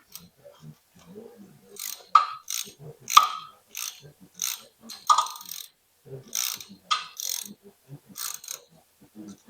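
Irregular metal clanks and scrapes, roughly one or two a second and loudest about two, three and five seconds in, from hand tools and metal parts being handled during tractor transmission work.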